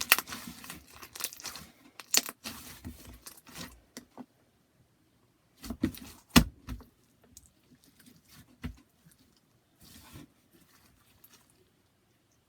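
Clear slime being stretched, folded and pressed by hand to trap an air bubble: irregular wet clicks, squelches and crackles, with a louder cluster of pops about six seconds in and only scattered clicks near the end.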